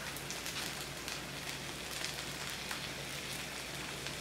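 Broth-dipped corn tortillas topped with cheese and shredded beef sizzling on a cast iron griddle: a steady frying hiss with frequent small crackling pops.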